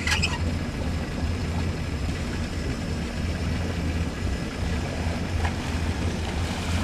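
A motorboat engine idling with a steady low hum, with a brief sharp sound right at the start.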